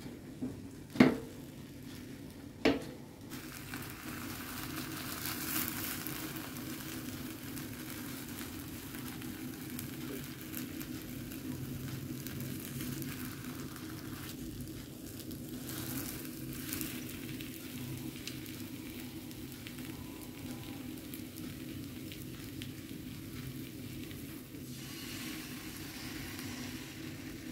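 Egg omelette sizzling steadily in a square nonstick pan over a portable butane gas stove. There are two sharp knocks in the first three seconds, and the sizzle brightens near the end as fresh beaten egg is poured into the hot pan.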